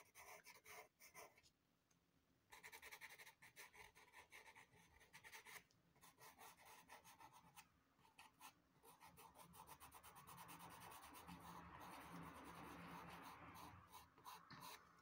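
Faint scratching of a Derwent pastel pencil on Clairefontaine Pastelmat paper, drawn in many quick short strokes, running more continuously in the last few seconds.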